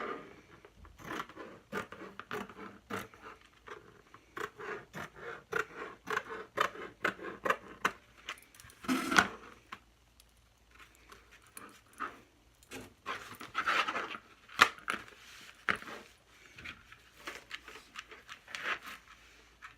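Irregular clicks, scrapes and rustles of hands working materials, with louder knocks about nine and fifteen seconds in.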